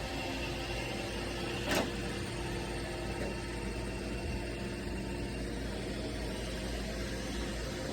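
Roomba robot vacuum running with a steady motor hum, with one sharp knock about two seconds in.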